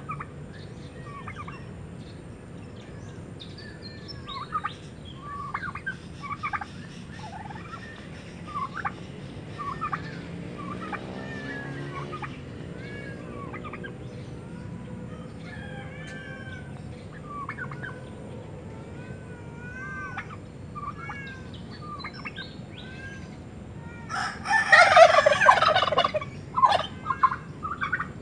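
Short bird chirps scattered throughout, and a loud fowl call lasting about two and a half seconds near the end.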